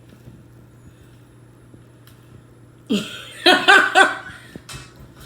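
A low steady hum, then about three seconds in a person's brief laugh in a few quick pulses.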